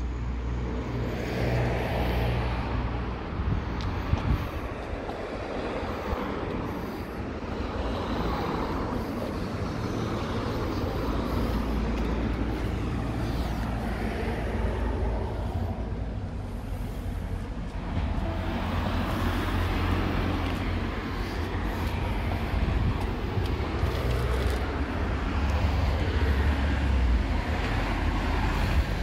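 Small single-cylinder motorcycle engine idling steadily, with street noise and hiss around it.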